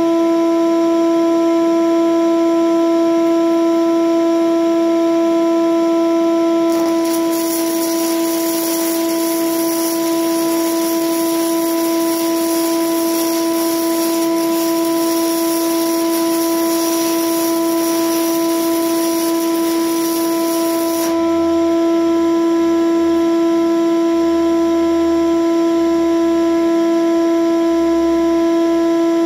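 Shop vacuum running with a steady high-pitched whine as it draws welding fumes through its hose. From about seven seconds in, a 6011 stick-welding arc crackles over it for some fourteen seconds, then stops.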